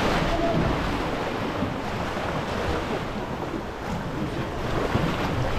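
Sea water washing around a small boat and wind buffeting the microphone, a steady noise with no breaks.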